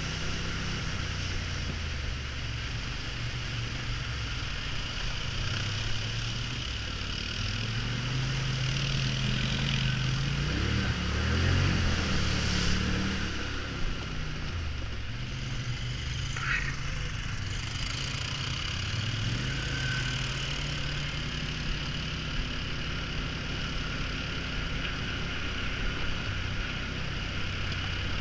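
Polaris Sportsman ATV engine running while riding over a rough trail, its revs rising and falling with the throttle. It is loudest and climbs about ten to thirteen seconds in.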